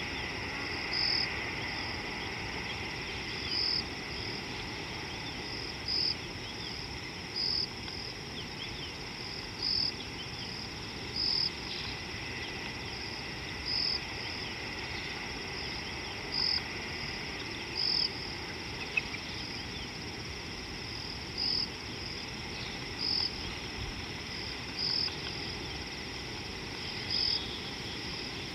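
Insects calling: a steady high-pitched buzz with a short, louder chirp every two seconds or so, over a faint background chorus.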